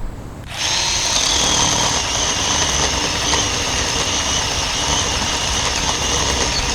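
Ryobi 18-volt 10-inch cordless chainsaw starting up and running with a steady electric whine as the chain barely touches the trunk, dipping slightly in pitch about two seconds in, then cutting out suddenly at the end: the battery, still showing two bars out of four, is already quitting.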